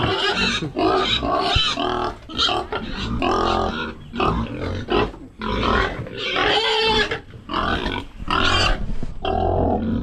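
Large domestic pigs squealing in their pen, a run of short, loud calls one after another with only brief pauses.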